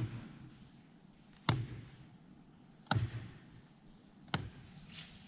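Rotary cam switches on a wall-mounted electrical control box snapped into position one after another: four sharp clicks about a second and a half apart, each echoing briefly off the rock walls of the tunnel chamber.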